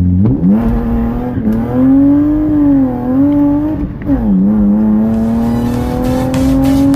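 Car engine revving under acceleration. Its pitch climbs and wavers, drops sharply about four seconds in as at a gear change, then climbs steadily again.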